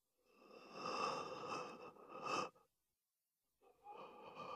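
Faint, ragged breathing of a badly wounded man lying on his back: two long, rasping breaths with a pause of about a second between them.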